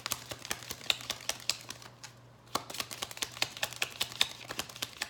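Tarot deck being shuffled by hand: quick, irregular clicking and flicking of cards, with a brief pause about two seconds in.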